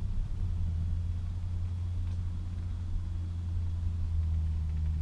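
Landa PGHW 5-3000 hot water pressure washer running at a steady speed: a low, even engine drone.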